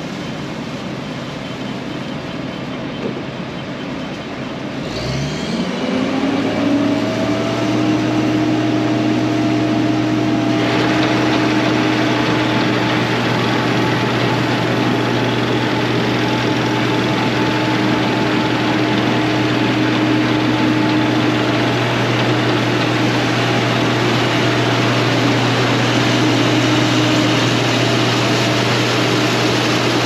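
Case IH 2388 combine's six-cylinder diesel running steadily; about five seconds in it winds up with a rising whine to a louder, steady run, and about ten seconds in a hissing noise joins in and carries on.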